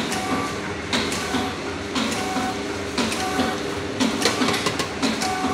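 Automatic sachet packing machine for chilli powder running through its packing cycle: a rhythmic mechanical clatter with a sharp click about once a second and a softer click between.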